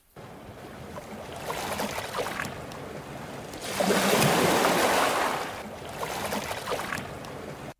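Sea waves washing, with one wave swelling louder in the middle and falling away.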